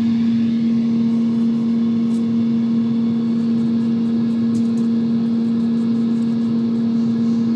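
Air fryer running: a steady electric fan-motor hum with one strong low tone over a rushing-air noise.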